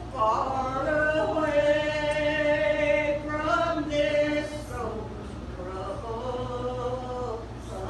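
Women singing a gospel song into microphones, with long held notes; the singing is louder at first and softer from about five seconds in.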